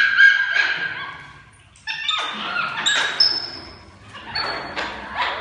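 Capuchin monkeys calling with high-pitched squeals and chirps while feeding. The calls come in bunches, with a short lull a little before two seconds in.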